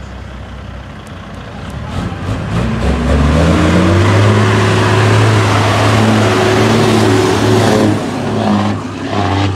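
Semi truck's diesel engine coming closer and passing close by. It rises in pitch and loudness as the truck accelerates, then runs steady and loud before easing off near the end.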